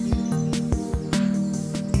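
Background music: sustained chords with a steady beat.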